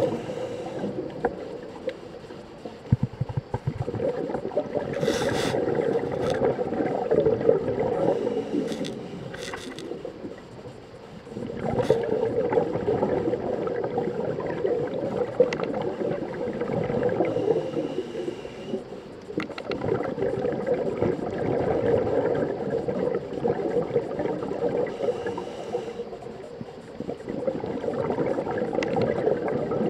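A scuba diver's breathing underwater: long spells of gurgling exhaled bubbles broken by quieter pauses about every eight seconds, heard muffled through the camera housing.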